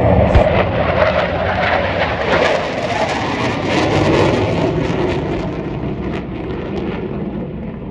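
Jet noise from F/A-18 Hornet fighters flying past, loudest at first and fading over the last few seconds. A single sharp bang about half a second in comes from a pyrotechnic blast on the airfield.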